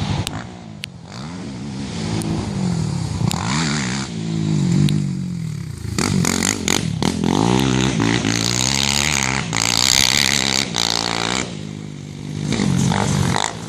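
Racing ATV engines revving hard, their pitch climbing and dropping over and over as the quads accelerate and shift, with quieter dips near the start and near the end.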